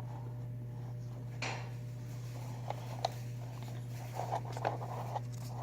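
Quiet handling of paper: a brief rustle, a sharp click about three seconds in, and light scraping and rubbing near the end, over a steady low hum.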